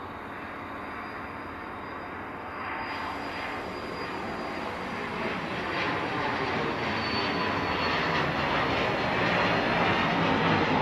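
Pilatus PC-24 business jet's twin Williams FJ44-4A turbofans at takeoff thrust: a steady jet rumble with a faint high whine, growing steadily louder as the jet lifts off and climbs.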